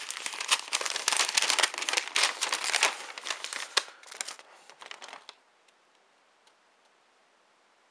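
Paper instruction leaflets being unfolded and handled, rustling and crinkling with sharp crackles, stopping about five seconds in.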